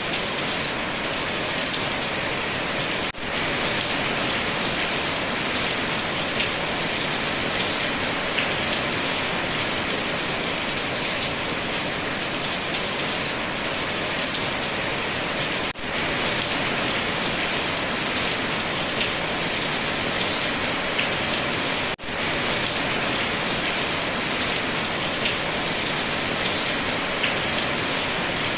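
Steady rain falling on a surface, a dense even patter of drops, with the sound dropping out very briefly three times.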